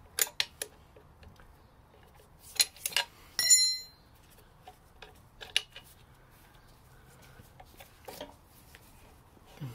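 Metal clicks and clinks of hand-tool work on a Triumph Stag gearbox's bellhousing and clutch release parts. The loudest is a short ringing metallic clink about three and a half seconds in, with a duller knock near the end.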